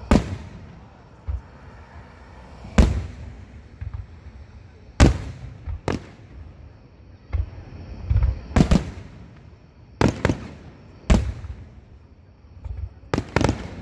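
Aerial fireworks shells bursting, about a dozen sharp bangs at uneven intervals of one to two seconds, each trailing off briefly.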